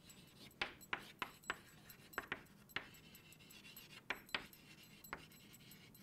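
Faint, irregular light clicks and taps, about a dozen of them, over a quiet background.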